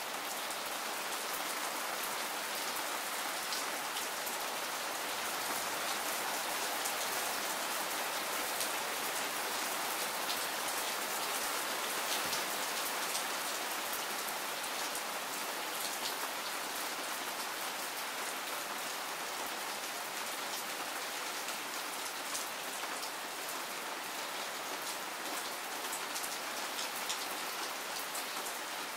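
Heavy rain falling steadily: a dense, even hiss with many separate drops ticking through it.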